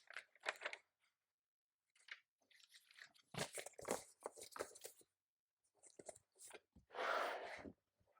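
Typing on a computer keyboard: uneven clusters of keystroke clicks, with a short rustling scrape lasting under a second near the end.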